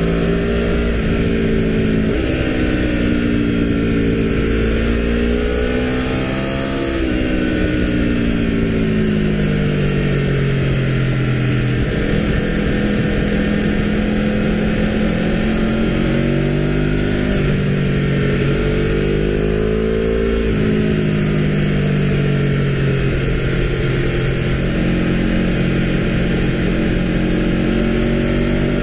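Aprilia RSV4 1100 Factory's V4 engine through an Akrapovic exhaust, heard on board while riding: the engine note falls and rises with the throttle through the bends, with a quick jump in revs about seven seconds in and a sudden drop about twenty seconds in. Wind rushes over the microphone throughout.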